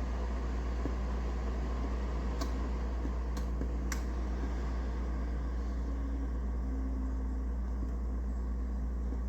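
Steady whir of a small ceramic space heater's fan with a low hum, and three faint ticks a couple of seconds in.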